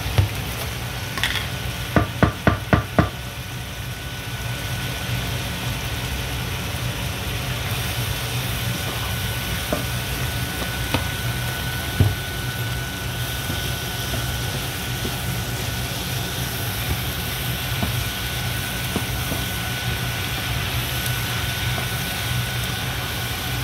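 Sliced onions and bell peppers frying in a non-stick pan with a steady sizzle, stirred with a wooden spoon. About two seconds in there is a quick run of about six sharp knocks, and a low steady hum runs throughout.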